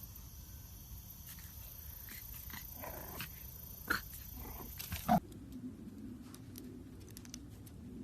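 A dog making a few short, quiet vocal sounds about three to five seconds in, the last the loudest; then a low steady drone sets in.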